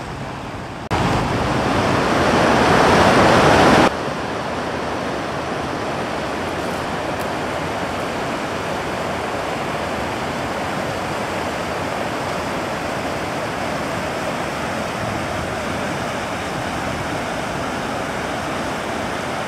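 Floodwater running over the road and down a rocky creek: a steady rush of flowing water. About a second in, it jumps louder for about three seconds, then drops back abruptly.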